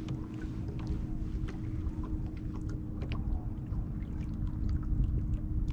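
Steady hum of the boat's motor over a low rumble, with faint scattered clicks.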